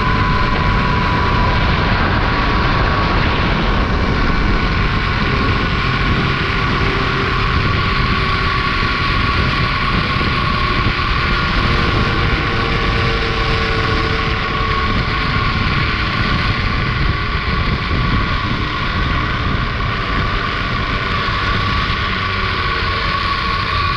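Zipline trolley pulleys running fast along the steel cable, making a steady high whine, over heavy wind buffeting the microphone. Near the end the whine sinks a little as the trolley slows.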